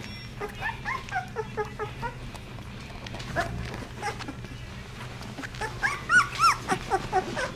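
16-day-old basset hound puppies whimpering and squealing in short, high, rising-and-falling cries: a quick series in the first couple of seconds, a few scattered ones, then a louder cluster about six seconds in. A steady low hum runs underneath.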